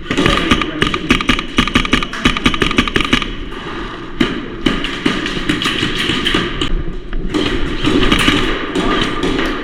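Airsoft guns firing in rapid bursts of fast clicking shots, with BBs striking hard surfaces; the densest bursts come in the first three seconds and again near the end.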